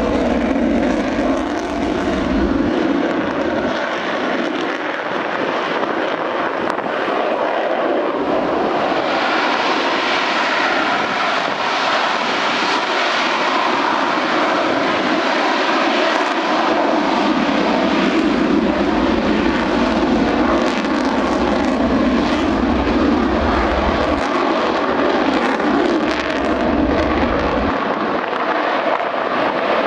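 Single F135 turbofan of an F-35 Lightning II at high thrust as the jet rolls down the runway and lifts off. A loud, steady jet noise that turns brighter and harsher about nine seconds in.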